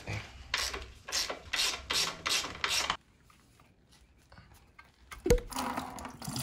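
About seven short rasping strokes in quick succession while the dirt bike's radiator is being worked loose. After a quiet spell there is one sharp knock, and then coolant starts splashing out of the disconnected water-pump hose into a plastic bucket.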